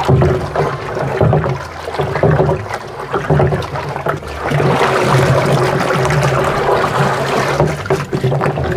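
Water sloshing and swirling in a plastic tank, stirred round by hand with a plastic dipper to dissolve molasses into about 100 litres of water. The swishing comes in repeated surges with each stroke and grows fuller about halfway through.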